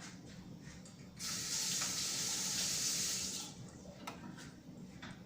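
Kitchen tap turned on, water running in a steady hiss for about two seconds, then turned off.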